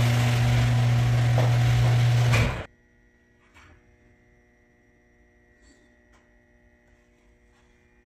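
Genie garage door opener's motor and drive running with a loud, steady hum, now working on a freshly replaced run capacitor; the sound cuts off abruptly about two and a half seconds in. After that, near silence with a few faint clicks.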